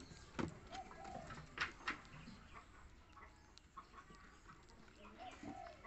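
Baby macaques eating banana: a few faint wet clicks of chewing and lip-smacking, with two short soft coo calls, one about a second in and one near the end.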